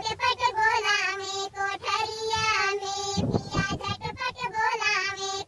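A high, cartoon-like pitched-up singing voice sings a Bhojpuri folk song in short phrases over music with drum beats.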